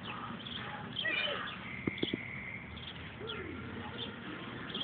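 Distant children's voices calling and squealing while they bounce on a backyard trampoline, with two sharp knocks about two seconds in.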